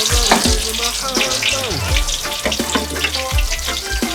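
Vegetable pakoras (gram-flour fritters) deep-frying in hot oil, sizzling with a steady crackle, near the end of their cooking when they are golden and crisp.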